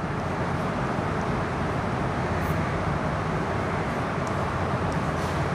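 Steady background noise, with a few faint taps of chalk writing on a blackboard.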